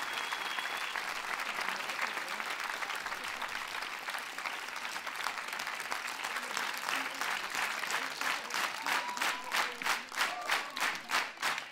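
Studio audience applauding. About two-thirds of the way in, the clapping falls into a steady rhythmic clap in unison.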